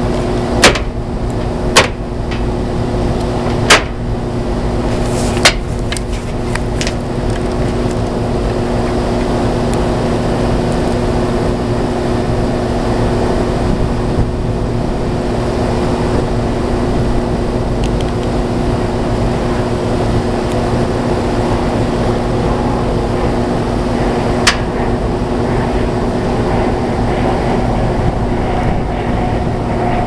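Carrier dual-circuit rooftop air-conditioning unit running steadily, its two three-phase Tecumseh hermetic compressors and condenser fan on while the refrigerant charge is checked, giving an even, steady hum. Several sharp knocks in the first six seconds and one more about twenty-four seconds in come from a meter and its case being handled.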